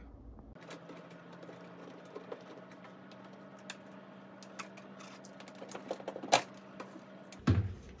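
Phillips screwdriver working a screw out of a microwave's plastic control panel: scattered small clicks and ticks, a sharper click about six seconds in, and a louder clatter near the end as the panel is pulled free of its retaining clips. A steady low hum underneath.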